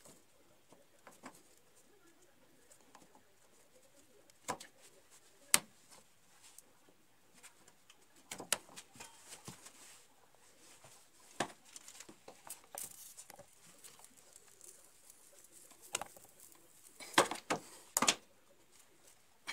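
Hands working at plastic water pipes and fittings: scattered sharp clicks and knocks, with a quick cluster of them near the end.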